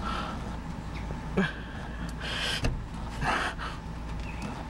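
A man's sharp breaths, about four in a few seconds, while his fingers work the drain loose on a hot oil filter housing, over a low steady hum.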